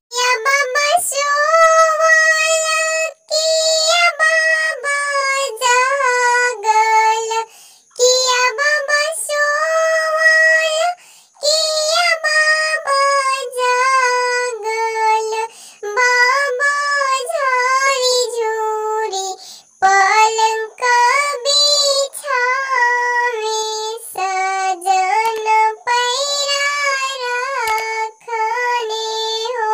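A voice pitched up into a high, squeaky cartoon-cat voice sings a Bhojpuri wedding song (vivah geet) solo, with no instruments, in sung lines broken by short pauses.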